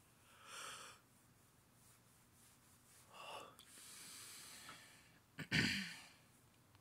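A person breathing close to the microphone. There is a short breath about half a second in, a longer exhale from about three to five seconds in, and a louder, sharper breath or sigh near the end.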